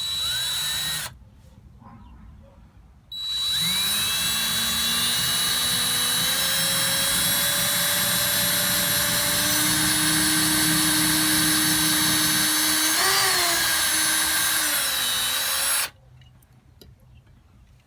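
Electric drill pre-drilling screw holes in wood. A short run stops about a second in, then after a two-second pause a long steady run of about thirteen seconds follows. The whine climbs as the motor spins up and shifts briefly near the end, then cuts off sharply.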